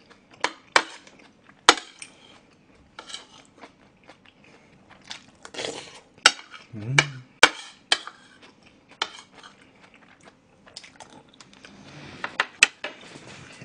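Metal spoon clinking and scraping against bowls in irregular sharp clinks while food is scooped, with chewing between.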